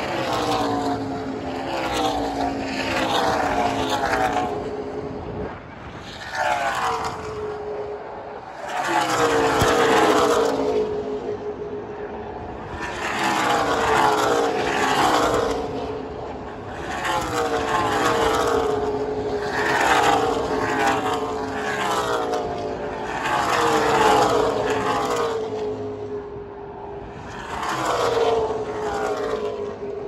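NASCAR race cars' V8 engines passing at racing speed in small packs, each pass a loud swell whose engine note falls in pitch as the cars go by, repeating every few seconds.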